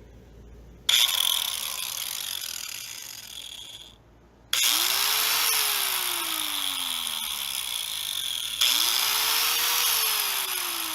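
Ryobi angle grinder, freshly fitted with a new switch, started three times: each time the motor whirs up suddenly, then winds down and fades. The switch now starts the motor and lets it coast down when released, where before the blade would not stop.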